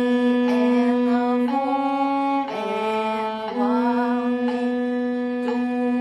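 Solo viola playing a slow melody in long bowed notes, a new note about every second, dipping lower in pitch around the middle.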